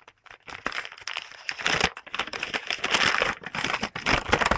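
Paper crinkling and rustling with small crackles as a glued homemade paper envelope is worked open by hand. It starts sparse and gets busier from about a second and a half in.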